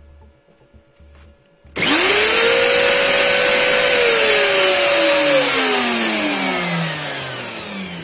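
A Dexter Power plunge router and a shop vacuum start together about two seconds in: the vacuum is switched on automatically by a current-sensing relay when the router draws power. Their motors spin up quickly to a steady loud whine with a rushing hiss. About five seconds in they are switched off and coast down, falling steadily in pitch and fading.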